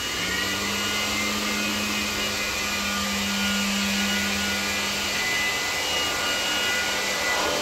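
Electric motor of a cleaning machine running steadily: a constant vacuum-cleaner-like rushing whir with a steady hum, its pitch dipping briefly at the start and coming straight back up.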